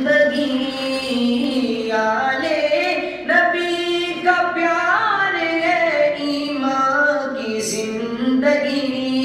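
A man chanting the durood (salawat on the Prophet Muhammad) unaccompanied into a microphone, drawing the words out in a long sung melody that rises and falls.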